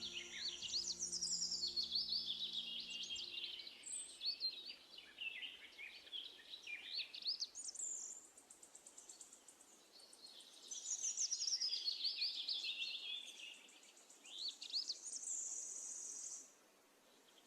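Songbirds singing: a mix of quick chirps, trills and falling song phrases, coming in waves with short lulls. A held musical chord fades out in the first few seconds.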